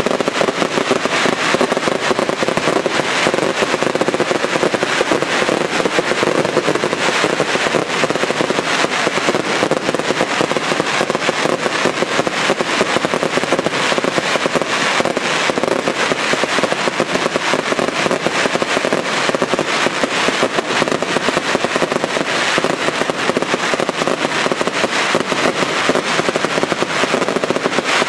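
Daylight fireworks barrage: a dense, continuous rattle of firecracker bangs and crackling from shells bursting overhead, with no let-up.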